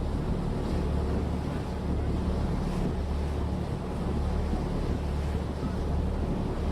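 Tour boat's engine running steadily under way, a constant low hum, with wind buffeting the microphone and water rushing along the hull.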